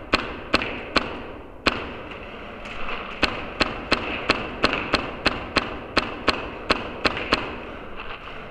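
Paintball marker firing a steady run of sharp shots, about three a second, with a pause of over a second early on in the run and the shots stopping near the end. Each shot echoes briefly in a large empty room.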